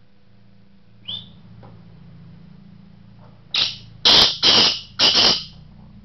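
Caged male black francolin calling: a single short high note about a second in, then four loud, harsh notes in quick succession near the end.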